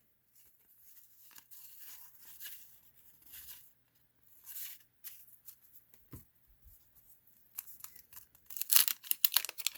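Basketball trading cards being handled and flipped through by hand: faint soft swishes of card stock sliding, then a louder run of quick flicks and rustles near the end.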